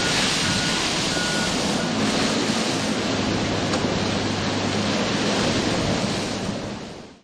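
Wildfire burning through brush and trees: a steady rushing roar, with a short repeated beep in the first two seconds. It fades out near the end.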